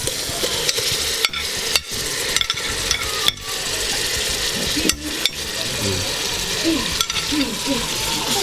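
Onions and tomatoes frying in a metal pot with a steady sizzle, broken by about seven sharp clicks of metal utensils against the pot and plate.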